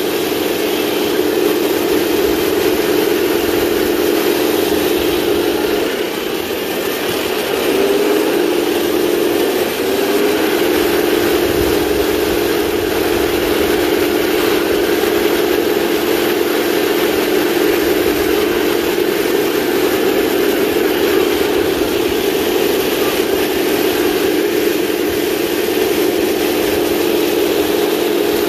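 1/16 scale RC tanks driving, their electronic sound units playing a steady simulated tank-engine drone. It dips briefly a quarter of the way in and wavers in pitch twice soon after.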